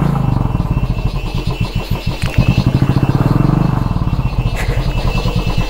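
Royal Enfield Bullet's single-cylinder engine chugging at low speed on a muddy trail, with a brief rise in revs from about two seconds in before settling back.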